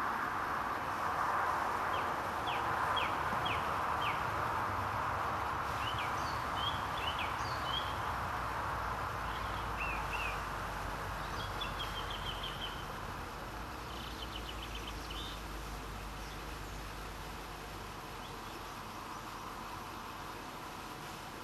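Small birds chirping and trilling on and off over a steady background hiss that slowly fades. A run of about five quick chirps comes early, and rapid trills come about halfway through and again a few seconds later.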